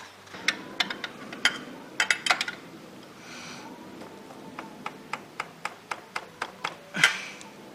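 Light metallic clicks and taps of spanner work on an oxygen sensor being tightened into a motorcycle exhaust header. After a few scattered clicks, a run of evenly spaced clicks comes at about four a second.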